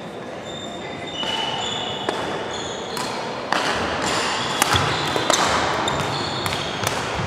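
Badminton rally: sharp racket hits on the shuttlecock, roughly one a second from about halfway, with short high squeaks of court shoes on the wooden floor.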